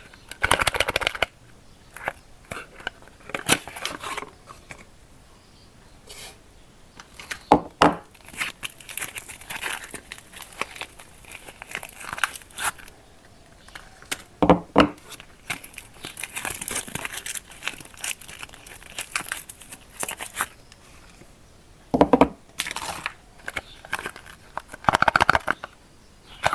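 Paper and plastic soap wrappers being torn open and crinkled by hand in irregular bursts. A few heavier thuds come about a third, halfway and three quarters of the way through.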